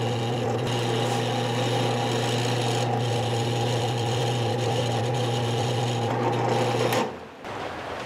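Drill press running steadily while boring a quarter-inch hole into the belly of a small wooden lure body. The sound cuts off about seven seconds in.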